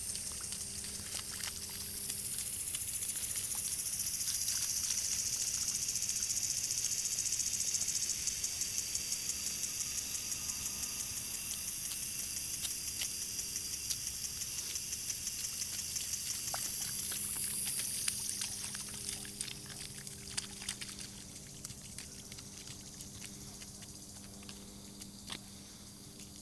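A toddler's sandalled footsteps splash lightly through a shallow puddle, as scattered small splashes and taps. Over them a high, even buzzing hiss swells in about two seconds in, holds, and fades away after about eighteen seconds.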